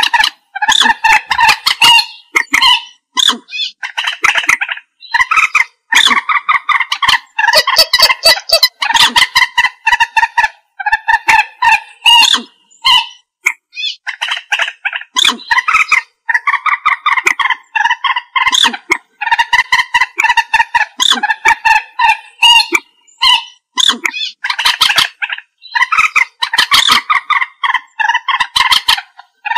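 Common moorhen calling: rapid runs of short, pitched call notes in bursts of about one to two seconds, with brief pauses between bursts.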